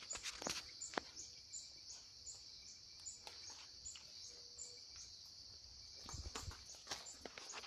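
Insects calling steadily: a continuous high buzz with a faint pulse about twice a second. Scattered short rustles and clicks come through it, with a few low thumps a little after six seconds in.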